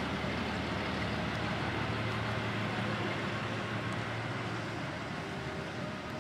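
Steady low hum and hiss of an indoor arena's background noise, with no distinct events; the lowest part of the hum drops away about two and a half seconds in.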